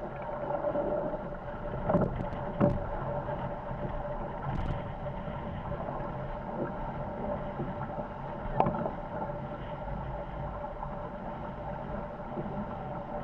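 Trimaran sailing fast in strong wind: water rushing along the hulls and wind noise, with a steady hum. There are sharp knocks twice around two seconds in and once about eight and a half seconds in.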